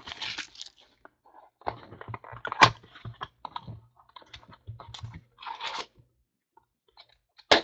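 A trading-card box's plastic wrap and cardboard being torn open and handled: irregular crinkling and tearing with scattered clicks, and a sharp snap about two and a half seconds in and another near the end.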